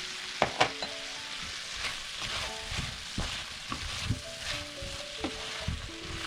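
Food sizzling in a hot pan while it is stirred, the spoon scraping and knocking against the pan, with two sharp knocks about half a second in.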